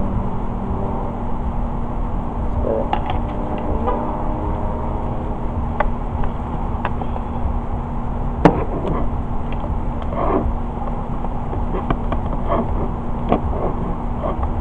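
Steady low background hum and rumble, with scattered light clicks and taps of makeup items being handled; the sharpest click comes about eight and a half seconds in.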